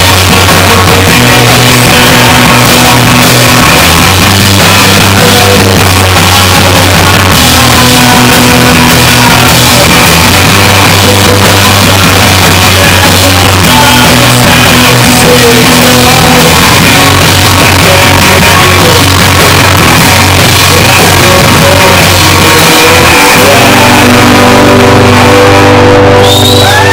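Live rock band playing loud through a heavily overloaded, distorted recording, the bass notes changing every couple of seconds under guitar and shouted vocals. Near the end the music briefly drops and high gliding tones come in.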